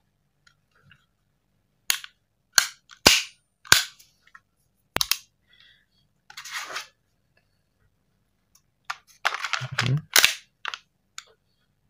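Sharp metal clicks and clacks of a full-metal KJ Works KP02 Sig Sauer P229 gas airsoft pistol being handled, its slide and magazine worked by hand: a few single clicks spaced about half a second to a second apart, a brief scrape, then a quicker run of clicks near the end.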